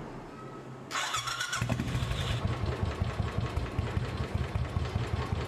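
Royal Enfield Classic 500's single-cylinder engine turned over by its electric starter about a second in. It catches within about half a second and settles into a steady idle. It starts at the first press on freshly fitted spark plugs.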